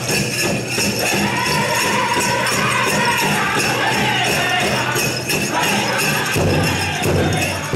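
Pow wow drum group playing a dance song: voices singing over a steady beat on a big drum, with the jingling of bells on the dancers' regalia.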